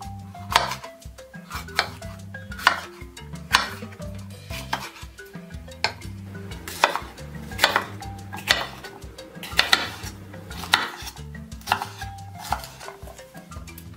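Kitchen knife cutting through a red bell pepper and knocking on a wooden cutting board, a sharp chop about once a second, over background music.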